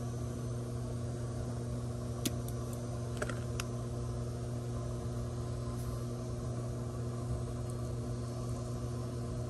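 Steady low electrical hum, with a few faint clicks and ticks a couple of seconds in and again about a second later.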